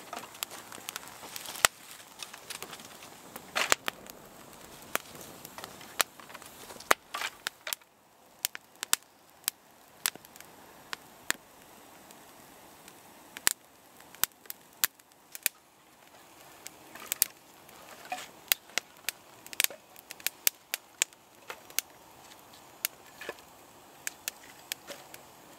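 Wood fire of kindling and small dry sticks crackling, with irregular sharp pops and snaps, in clusters of several a second at its busiest.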